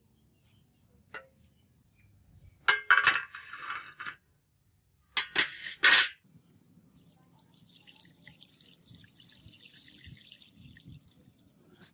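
Water being handled: two short splashing bursts, about three and five and a half seconds in, then a fainter steady hiss.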